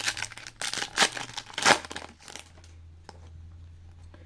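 Foil wrapper of a trading-card pack being torn open and crinkled, a quick run of crackling rips in the first couple of seconds, then it goes quiet apart from a low hum.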